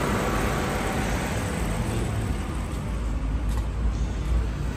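Car engine idling: a low, steady rumble.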